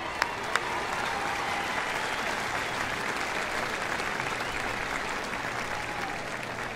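Football stadium crowd applauding: a steady, dense wash of clapping, with a few sharp cracks in the first second.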